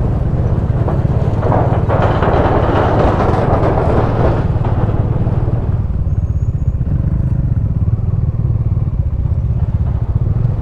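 Bajaj Dominar's single-cylinder engine running at low speed, heard from the rider's position with wind and tyre noise. The wind and road noise ease off about halfway through as the motorcycle slows toward a stop.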